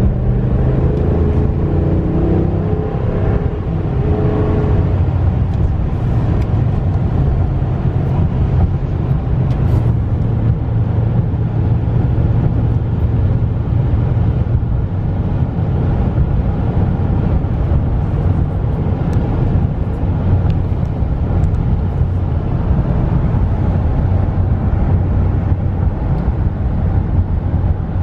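Cab interior of a 2015 Dodge Ram 1500 under way: the 5.7-litre Hemi V8 and road noise make a steady low drone, with a shifting higher tone in the first few seconds.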